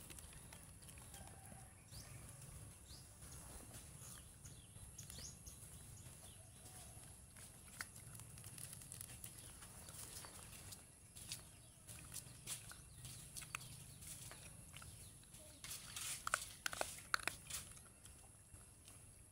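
Puppies chewing and crunching dry kibble off a concrete floor: soft, scattered clicks that come thickest near the end. A few faint high chirps sound earlier on, against a low, quiet background hum.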